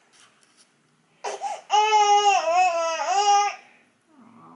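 Baby crying: after a quiet first second, one long wail of about two seconds with a wavering pitch. The baby is tired and cranky, just woken from a nap.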